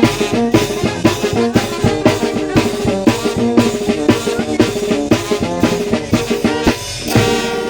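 Mexican banda de viento, a brass wind band, playing: brass over bass drum and snare keeping a steady beat, ending on a held chord about seven seconds in.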